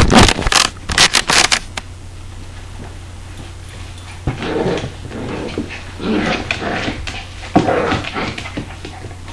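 Labrador retriever and Border Collie puppy play-growling as they wrestle, in short bouts about four, six and eight seconds in, over a steady low hum. A few loud knocks in the first two seconds.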